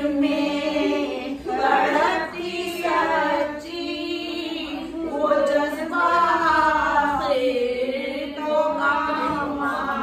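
Women's voices singing devotional verses together without instruments, in long, held melodic phrases that rise and fall.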